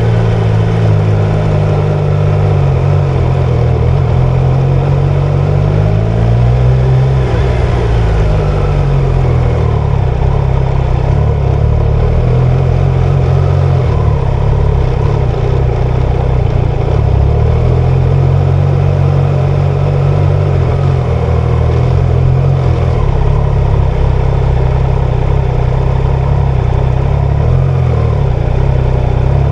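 Triumph Tiger Sport 660's three-cylinder 660cc engine running while ridden, its note rising around six to seven seconds in, then dropping back and changing pitch again as the revs vary.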